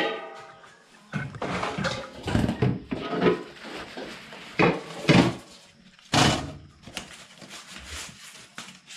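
Large aluminium steamer pot and its metal lid and trays being handled: a metallic ring fades at the start, then a run of separate clanks and knocks as leaf-wrapped rice cakes are loaded onto the perforated steamer tray.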